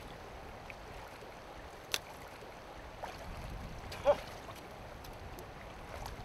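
Shallow river water running over a stony bed, a steady rush, with a sharp click about two seconds in and a short, louder sound about four seconds in as a large salmon is tailed and lifted from the water.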